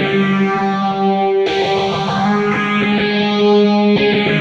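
Electric guitar played through the phaser of a Nux Cerberus multi-effects pedal: held notes with a slow, swirling sweep. New notes are struck about a second and a half in and again near the end.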